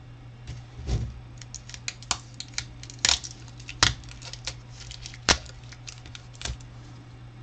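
Handling and unsealing a taped plastic Lego-store cup of loose bricks: irregular clicks, tape tearing and small rattles, with a few louder snaps.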